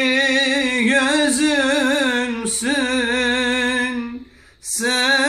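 A man singing a slow Turkish love song, drawing out long notes with a wide vibrato. He breaks off briefly about four seconds in, then sings on.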